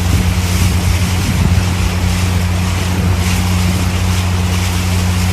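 Motorboat engine running steadily, with wind rushing over the microphone.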